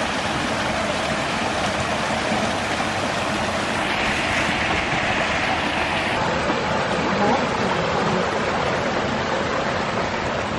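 A steady rushing noise, with a brighter hiss for a couple of seconds in the middle.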